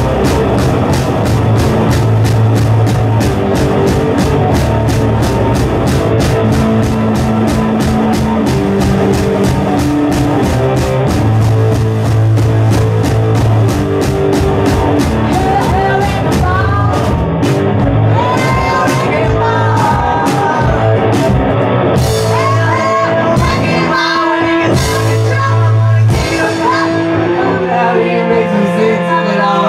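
Live rock band playing loudly: fast, steady drumming over bass and guitar, thinning to sparser drum hits about halfway through as a singing voice comes in over the band.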